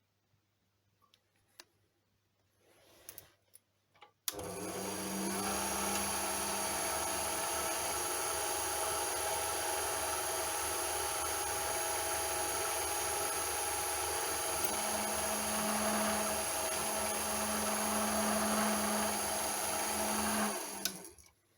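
Small lathe running steadily with a constant whine, boring a 3 mm hole into a 10 mm brass rod. It starts suddenly about four seconds in, after a few faint clicks, and stops shortly before the end.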